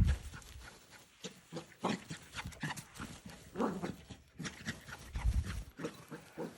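A dog running around with the zoomies: irregular footfalls and knocks, with a louder low thump about five seconds in.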